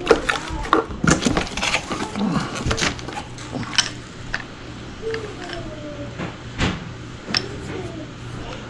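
Handling noise from the unboxing of an angle grinder: a series of sharp clicks and knocks, busiest in the first few seconds, then sparser.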